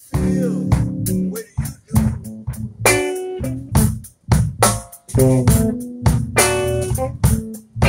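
Hollow-body electric guitar played through a small amp together with a drum kit, live band practice. The playing comes in short, choppy phrases of chords and sharp drum hits with brief breaks between them.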